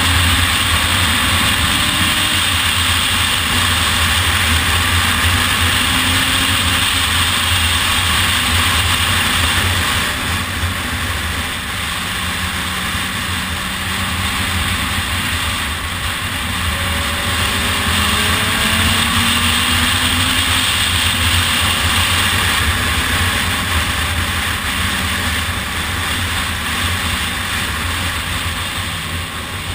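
Onboard sound of a motorcycle being ridden at road speed: steady wind rush over the mounted microphone, with the engine note underneath, its pitch rising and falling with the throttle. It gets a little quieter about ten seconds in.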